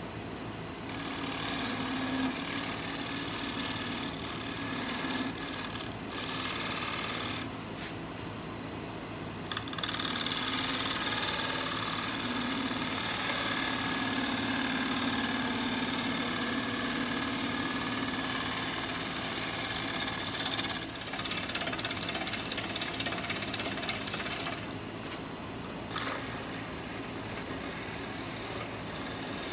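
Wood lathe running with a steady motor hum while a bowl gouge makes light finishing cuts across the inside bottom of a spinning pear-wood bowl to clean up tear-out. The hiss of the cut starts and stops several times, with the longest stretch in the middle.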